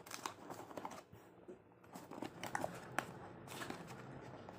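Cardboard box being handled and pried open: scattered rustles, scrapes and small clicks of cardboard and packaging, with a short lull just after a second in and a sharper click near the three-second mark. The box is hard to open.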